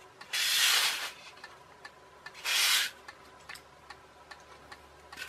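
Two short rubbing scrapes, about half a second in and again about two and a half seconds in, as the styrofoam boat hull is slid across the cutting mat. After them comes faint, even ticking, about two to three ticks a second.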